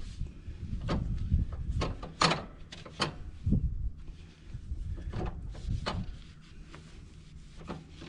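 Irregular knocks, clicks and rubbing from hands handling tools and wiping up around the mower's oil drain, busiest in the first half and thinning out toward the end.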